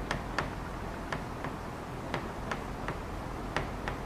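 Pen tapping and clicking on an interactive display board as words are handwritten, a short sharp click with each stroke, two or three a second at uneven spacing, over a low steady hum.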